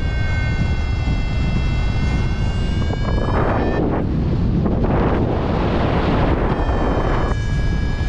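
Airflow rushing over the microphone in paragliding flight, swelling into louder hissing gusts in the middle. A steady high electronic tone, slowly rising in pitch, sounds over it, breaks off about four seconds in and returns near the end: a paragliding variometer's audio tone.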